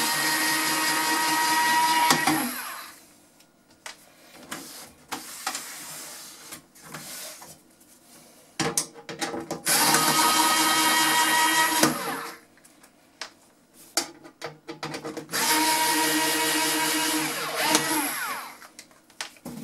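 Cordless electric screwdriver running in three bursts of two to three seconds each, undoing a cassette deck's metal case screws, with faint handling clicks and knocks between the bursts.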